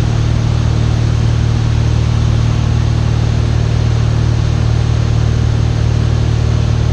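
Cessna 172 Skyhawk's piston engine and propeller droning steadily in cruise flight, a constant low hum with no change in power.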